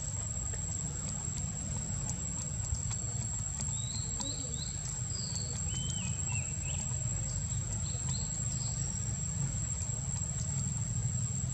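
Outdoor ambience: a steady high insect whine over a constant low rumble, with a few short high chirps between about four and nine seconds in.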